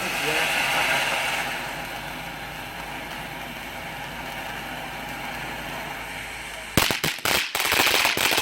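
Small novelty firework burning with a steady hiss for about seven seconds, then breaking into a rapid, irregular string of crackling pops near the end.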